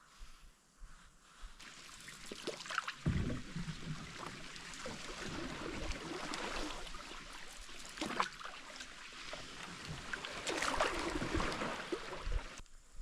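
Wooden rowboat being rowed: oars splashing and pulling through river water, with trickling off the blades. Three heavier strokes come a few seconds apart.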